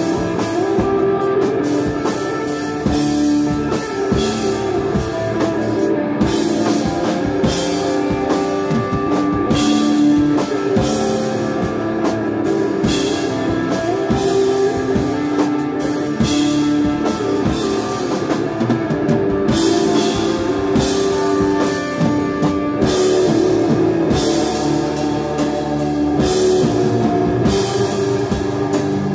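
Live instrumental desert rock band playing: electric guitar and bass holding long sustained notes over a drum kit with repeated cymbal crashes, no vocals.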